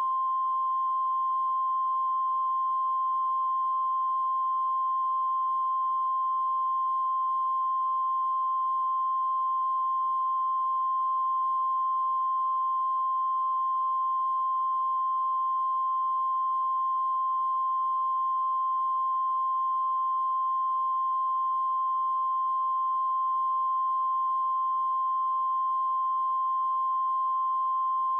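Steady line-up test tone from a videotape's bars-and-tone leader: a single unbroken beep at one pitch.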